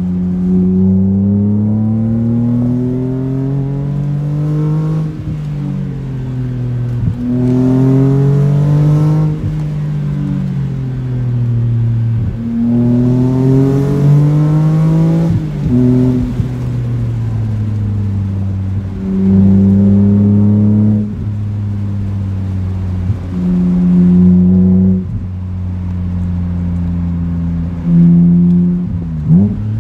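BMW Z4 M's S54 straight-six through an aFe aftermarket exhaust, accelerating hard through the gears: the engine note climbs steeply and drops back at each shift several times, then runs steadier with short bursts of throttle.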